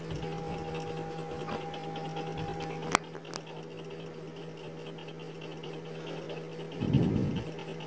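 Metal slotted spatula and tongs lifting boiled chicken pieces out of a pot of broth, with a sharp metal clink about three seconds in, a fainter one just after, and a dull thud near the end. A steady electrical hum runs underneath.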